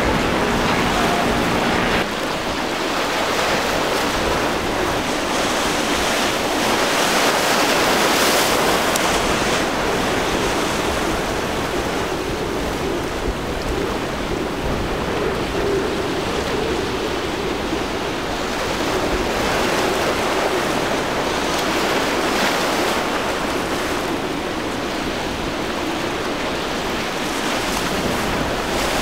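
Outboard engines run with a steady hum for about two seconds, then cut off. Wind buffeting the microphone and breaking surf follow, with a faint steady engine hum of an outboard-powered boat running through the chop underneath.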